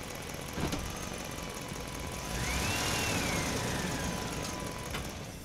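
Huina RC excavator's electric motors running as it lifts and swings a bucket of sand, with a sharp knock just after half a second in. Midway, a motor whine rises in pitch and then slowly falls as the boom moves.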